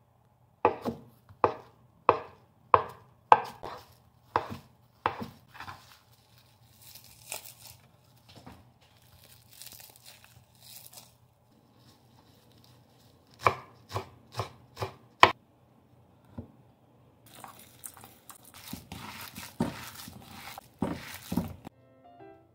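Kitchen knife chopping on a wooden cutting board in two runs of even strokes, about eight in the first few seconds and about five more past the middle, roughly one to two strokes a second. Softer rustling and handling noise fills the gaps, and light music comes in at the very end.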